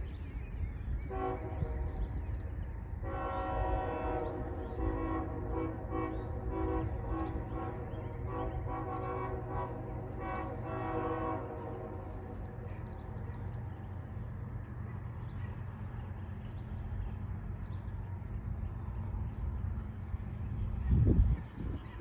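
Diesel freight locomotive's multi-note air horn played as a horn show: one blast of about two seconds, then a run of long and short blasts for about nine seconds, over a steady low rumble. A short loud thump near the end.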